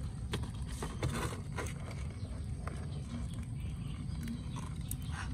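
A steady low outdoor rumble with a few faint, light clicks and taps in the first half.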